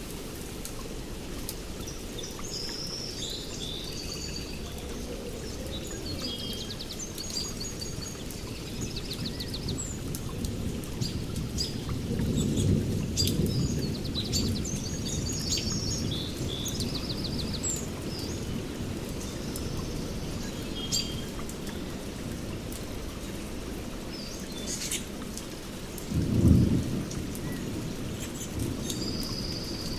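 Steady rain in a rainforest with distant thunder rolling in twice, a long rumble about twelve seconds in and a sharper clap near the end. Birds call and trill high above the rain throughout, with scattered drops ticking.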